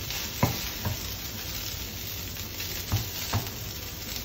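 Vegetable fried rice sizzling in a non-stick frying pan as a wooden spoon stirs and lifts it, with four knocks of the spoon against the pan, two about half a second in and two about three seconds in.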